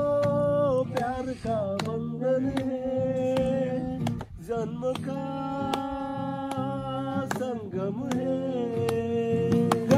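Voices singing a slow song to a strummed acoustic guitar, with long held notes over regular strums.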